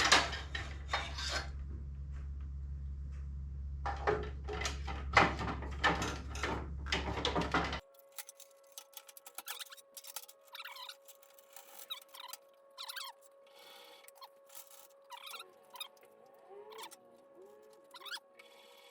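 Knocks and clicks of a table saw's blade guard and riving knife parts being handled and pushed into place, over a low steady hum. About eight seconds in the hum cuts off, and fainter small clicks and squeaks follow as the guard is worked at and sticks.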